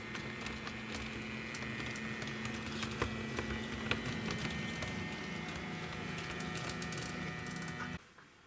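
H0-scale Märklin model train running past, with a steady electric motor whine and the clicking of wheels over rail joints. The sound cuts off suddenly about eight seconds in.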